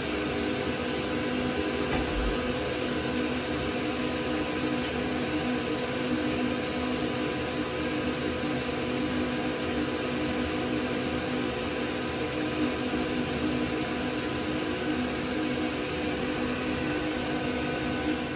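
Combustion blower of an A. O. Smith Cyclone MXi BTH-150 commercial gas water heater running steadily during its pre-purge before ignition: a steady whir with a few steady humming tones.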